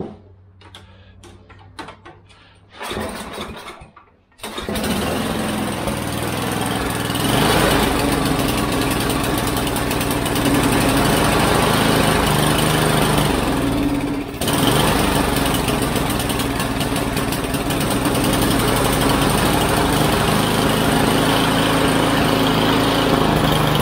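Primer bulb pushed several times, then the Mastercraft snowblower's engine starts on full choke, catching about four and a half seconds in and running steadily, with one brief dip about midway. This is an engine that will only run with the choke on, which the owner puts down to a fuel or carburetor problem.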